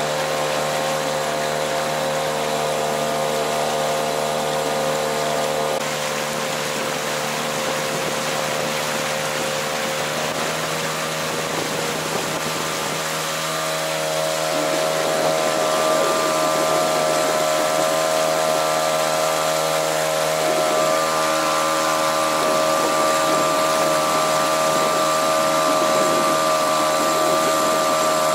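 Mercury 3.3 M two-stroke outboard motor running under way while being run in: a steady motor whine that speeds up and gets louder about fourteen seconds in.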